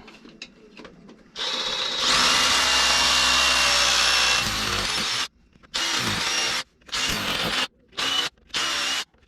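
Power drill with a 3/16 in bit boring a pilot hole into concrete for a Tapcon screw. It runs steadily for about three seconds, winds down, then gives several short bursts.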